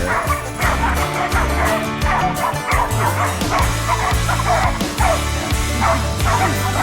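Background music with a steady bass line, over pig-hunting dogs barking and yelping over and over, several calls a second.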